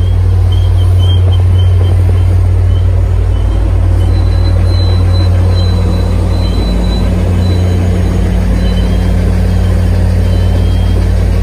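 MBTA commuter rail train passing close by: a steady heavy rumble of coach wheels on the rails, with the trailing diesel locomotive's engine joining as it passes near the end. Faint, broken high squeals from wheels on the curve sound now and then.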